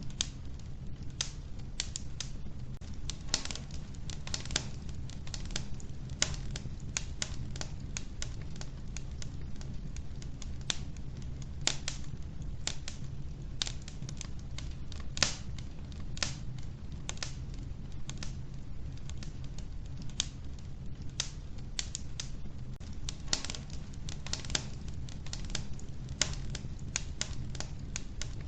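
Wood fire burning in a wood stove: irregular sharp crackles and pops from the logs over a steady low rumble of the flames.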